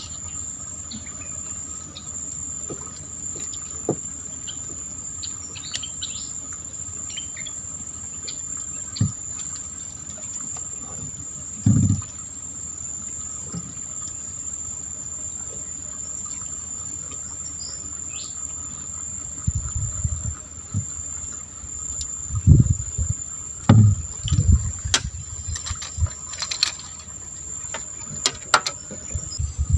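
Insects chirring in a steady, high-pitched drone throughout. In the second half, irregular low thumps and rumbles come and go over it.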